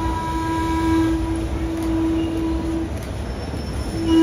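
A subway train's horn sounds a long, steady blast over the low rumble of the train. The blast breaks off about three seconds in and a second blast starts near the end.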